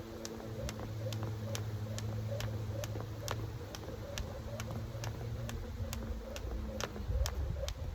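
Jump rope slapping the ground in a steady rhythm, about two to three sharp clicks a second, over a steady low hum.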